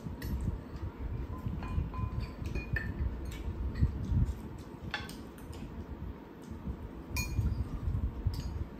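Metal spoon clinking and scraping against ceramic rice bowls, the sharper clinks ringing briefly, mixed with the low noise of chewing during a meal.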